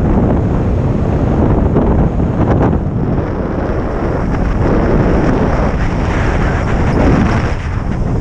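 Wind buffeting the camera's microphone, a loud, steady rumble that swells and dips, as the rider is pulled along by the kite on a landboard.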